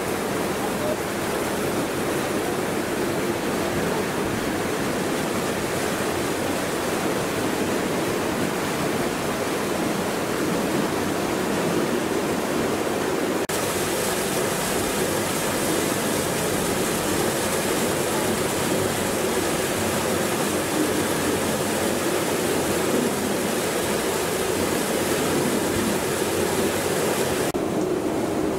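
Steady rush of churned water from a boat's wake. The hiss turns brighter suddenly about halfway through and duller again near the end.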